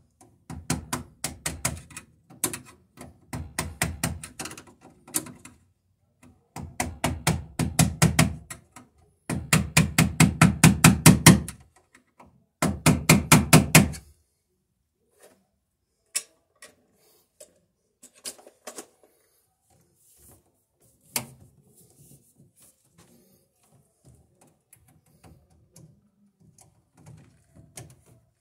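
Rapid metal tapping in four bursts of a few seconds each, then only scattered lighter clicks: a screwdriver being worked against a knockout on top of a steel breaker panel to punch it open.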